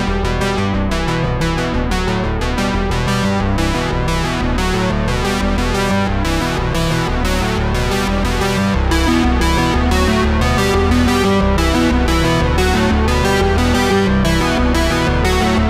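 Background music: synthesizer and keyboard with a steady beat, the bass filling out about nine seconds in.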